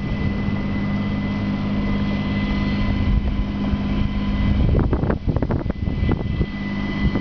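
Wind rushing over the microphone of a camera carried aloft on a parasail, with a steady low hum underneath. The buffeting turns rougher and more uneven about five seconds in.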